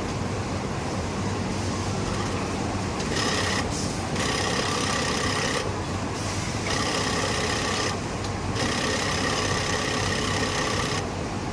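Industrial sewing machine stitching in four short runs with brief pauses, its motor whine starting and stopping each time, over a steady hum of factory machinery.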